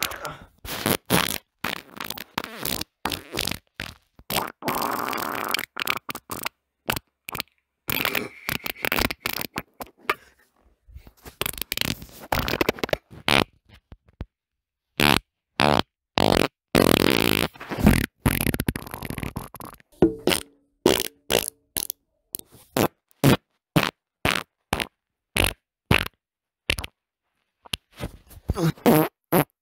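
Human farts, a series of separate recordings: short sputtering bursts, many following each other in quick succession, with a few longer ones, the longest lasting about two seconds a little past halfway.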